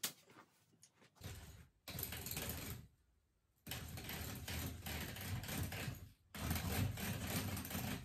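A click as a roller blind is pushed home into its brackets, then the blind's pull chain rattling through its control clutch in three long runs as the blockout blind is wound down.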